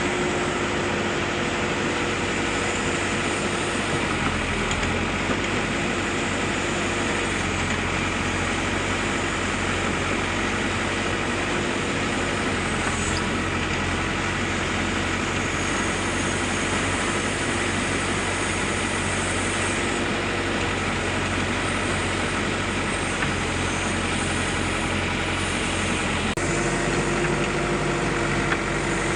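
Backhoe loader's diesel engine running steadily while the machine works soil, its note changing near the end.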